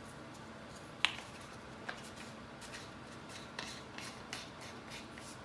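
A few faint, light clicks and taps, the sharpest about a second in, from spice jars and a measuring spoon being handled on a kitchen counter.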